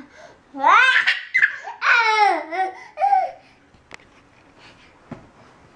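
Toddler's high-pitched laughing squeals: a few sliding, rising-and-falling cries over the first three seconds, then a quieter stretch.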